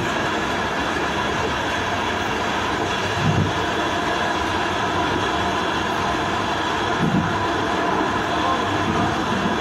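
A train running steadily along the track, heard from inside the driver's cab: a continuous rumble and hiss with a faint steady whine, and two dull bumps about three and seven seconds in.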